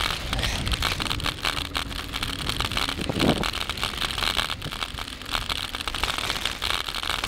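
Bicycle tyres rolling over a gravel road with a steady crackling crunch, with wind on the microphone. A short low sound stands out about three seconds in.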